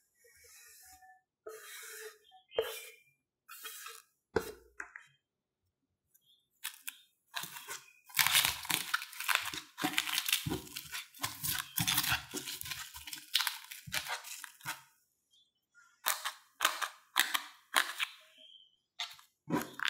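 Plastic cling film crackling and crinkling as it is pulled and stretched tight over a bowl, densest in the middle. Before that come a few light taps and scrapes of diced potato being scraped off a wooden cutting board into the bowl.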